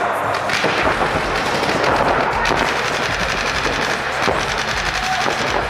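Paintball markers firing rapid strings of shots, many shots a second.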